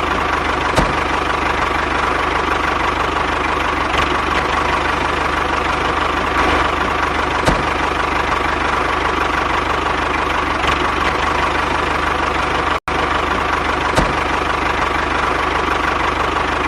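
Mini DIY tractor running steadily with a dense mechanical hum and a faint tone around the middle of the range, a few light clicks, and a momentary cut-out about 13 seconds in.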